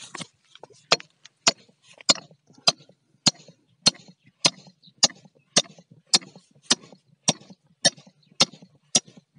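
Hand-tool work on a fitting: a steady run of sharp single clicks, a little under two a second, starting about a second in.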